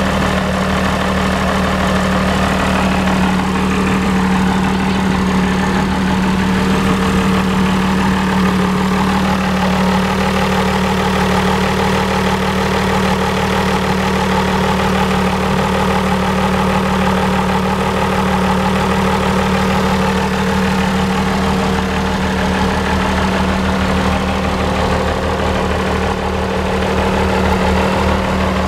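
Twin-turbocharged inline six-cylinder diesel engine of a rat rod truck idling steadily, its note even and unchanging with no revving.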